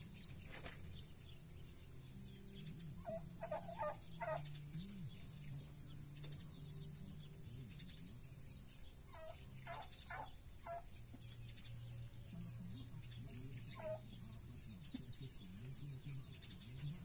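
Faint calls of farm poultry: short runs of three or four clipped notes, heard three times over.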